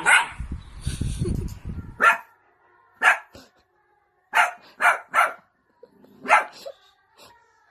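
A dog barking in short single barks, about seven of them, spaced irregularly, with a low rumble under the first two seconds.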